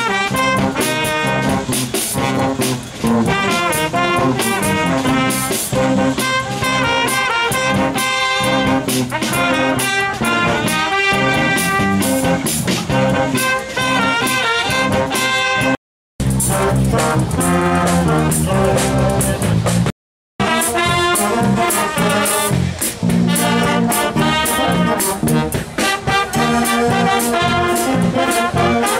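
Wind band of brass and saxophones playing, with a trumpet out front taking a solo. The sound cuts out completely twice, each time only briefly: once a little past halfway and again about four seconds later.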